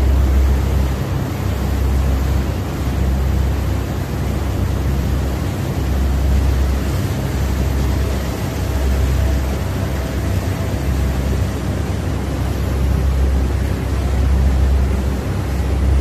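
Steady rushing drone of a cold-storage room's refrigeration air-cooler fans, with an uneven low rumble of moving air on the microphone. A faint thin whine sounds through the middle.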